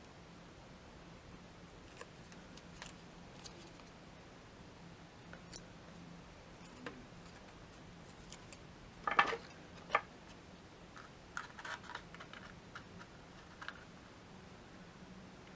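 Card stock being handled and folded: scattered light taps and paper clicks, with a short rustle of card sliding about nine seconds in and a sharp tap just after, then a run of small clicks.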